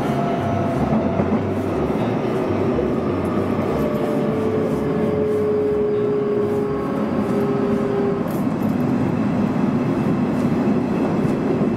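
Nishitetsu limited-express electric train running at speed, heard from inside the passenger car: a steady rumble of wheels on rail.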